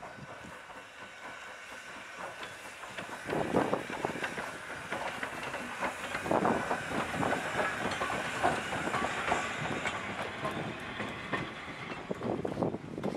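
Train behind the steam Decapod Great Western 90 rolling by, its wheels clacking irregularly over the rail joints, the clatter starting about three seconds in.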